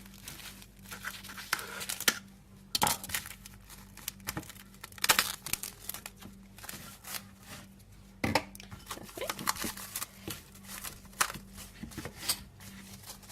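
Plastic cling film being pulled, torn and crinkled in irregular rustling bursts while covering a bowl, over a faint steady low hum.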